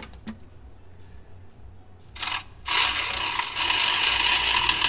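A few light clicks, then from a little past halfway a ratchet wrench on a long extension clicking steadily as it runs the exhaust header nuts on.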